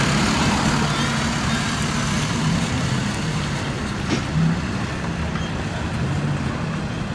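Diesel engine of a medium-duty box truck pulling away at low speed, slowly growing fainter, with a brief knock about four seconds in.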